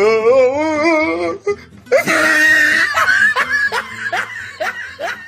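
Voice sound-effect clips in quick succession: a wavering, warbling vocal note, then a loud shrill shriek, then a run of short falling laughs.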